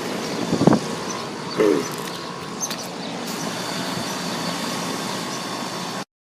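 Ducane 12 SEER central air conditioner's outdoor unit running steadily, a fan-and-compressor hum with faint steady whining tones. A brief pitched sound breaks in about a second and a half in, and everything cuts off suddenly near the end.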